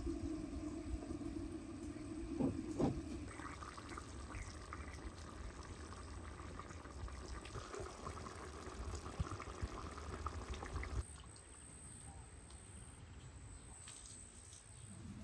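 Liquid pouring steadily into a vessel, with two light knocks about two and a half seconds in; the pouring stops abruptly about eleven seconds in.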